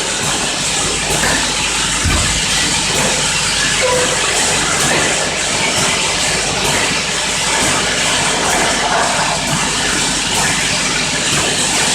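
A piston-pump bottle filling and capping machine running: a steady mechanical noise with a hiss.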